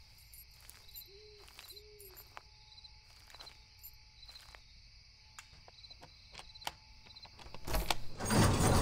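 Night ambience of crickets and insects chirring steadily, with a few faint clicks and two short low hoots about a second apart. Near the end a sudden loud clank and rumbling scrape as the locking bar on a steel shipping container door is pulled.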